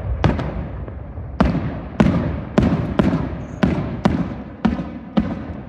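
Aerial firework shells going off in quick succession: about ten sharp bangs in under six seconds, each trailing off into a low rumbling echo.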